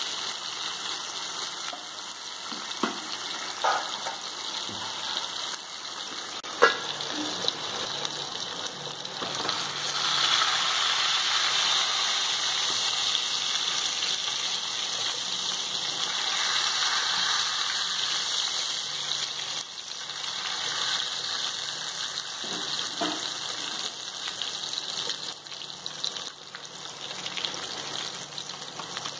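Karimeen (pearl spot fish) sizzling steadily as they shallow-fry in hot oil in a nonstick pan. A wooden spatula knocks against the pan a few times as the fish are turned, most sharply about seven seconds in.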